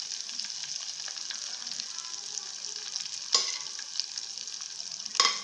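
Murrel fish shallow-frying in oil with masala, a steady sizzle with fine crackling. Two louder sharp clicks stand out, about three and a half and five seconds in.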